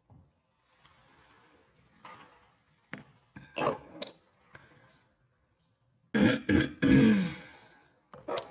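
A woman clearing her throat and making short wordless vocal noises, the loudest cluster about six seconds in.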